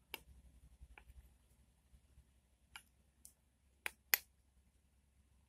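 A spoon clicking against a dish while stirring sago starch and dish soap into slime: about six sharp clicks spaced irregularly, the loudest two about four seconds in.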